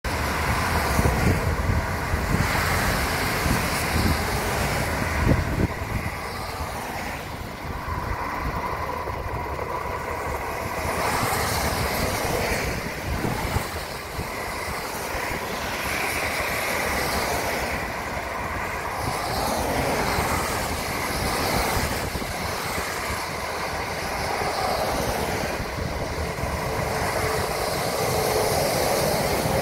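Motorway traffic passing on a wet road: tyres hissing through surface water and spray, swelling and fading as cars, vans and lorries go by, over a steady low rumble.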